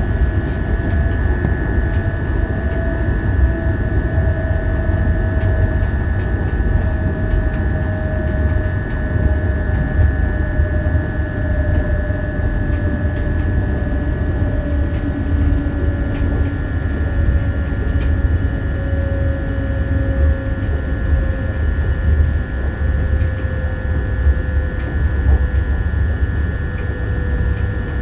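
Škoda Vagonka EJ575 electric multiple unit running at speed, heard from inside the carriage: a steady low rumble, a steady whine, and a fainter whine that slowly falls in pitch.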